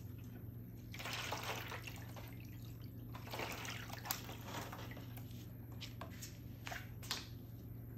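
Red liquid dye sloshing and dripping in an aluminium foil tray as a gloved hand swishes through it, in swells of splashing, with a few sharp clicks.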